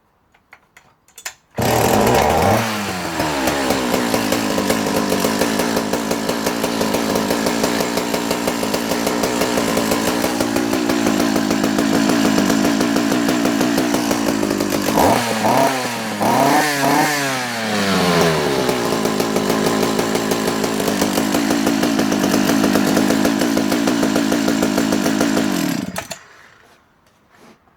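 Alpina 55 Professional two-stroke chainsaw, bar and chain removed, starting up after a few clicks about a second and a half in. Its speed falls from the fast start-up setting within the first second, and it then runs steadily. It is revved up and down a few times around the middle, then runs on and cuts out suddenly near the end.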